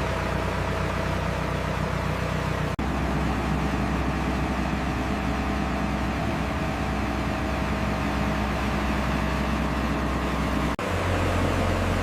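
Diesel engine of heavy construction machinery running steadily with a low drone. It breaks off abruptly twice, about three seconds in and near the end, and the drone's pitch is different after each break.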